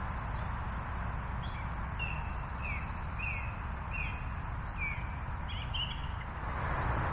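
A small bird calling a run of short, falling chirps, about two a second, over a steady background rush.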